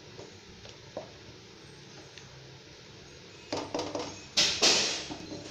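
Stainless steel kitchenware clattering: a few light knocks about three and a half seconds in, then a louder metallic clatter that rings out briefly.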